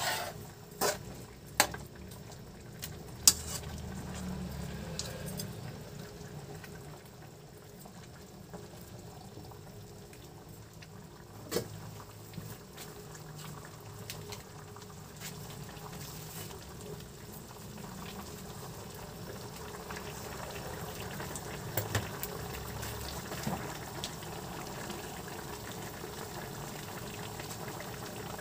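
Pork chops and potatoes simmering in sauce in a metal wok: a steady bubbling. A metal spatula clanks sharply against the wok a few times in the first few seconds, and a couple of single clicks follow later.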